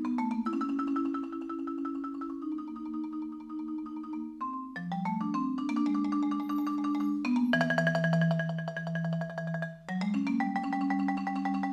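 Instrumental background music of struck, ringing notes: quick runs of single notes that then ring on as held chords, with a brief break near the end.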